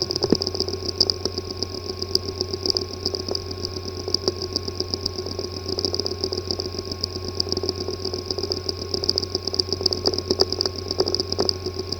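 Hard drive with a physically damaged disk assembly running: a steady low hum and a pulsing high whine, with rapid irregular ticking and clicking throughout. It cuts off suddenly at the end.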